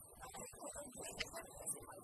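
A woman's voice speaking, with background music underneath.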